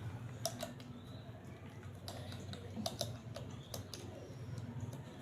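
Irregular light clicks and taps from hands handling a phone charger and its packaging, about a dozen in all.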